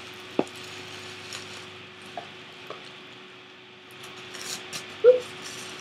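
Packaging being handled: light clicks and a short plastic rustle, then a sharp knock near the end as something is dropped.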